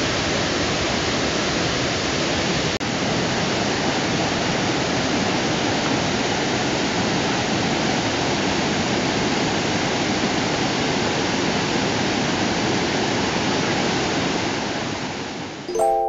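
Waterfall rushing steadily over broad rock slabs into a pool, with a momentary dropout about three seconds in. The water fades out near the end as a chiming mallet-percussion tune starts.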